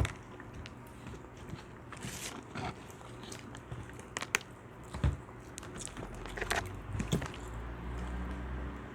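Close-up eating sounds: chewing and biting on fast food, with scattered small clicks and crunches.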